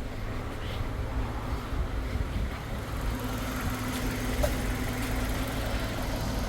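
2008 Hyundai Avante engine idling steadily with the air-conditioning on. The A/C compressor is turning, but the system has lost its refrigerant, so no cold air comes out.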